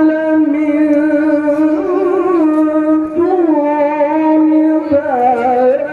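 A man reciting the Qur'an in the melodic tilawah style into a microphone. He holds long notes that waver in ornaments, with the pitch climbing about two seconds in and dipping again near the end.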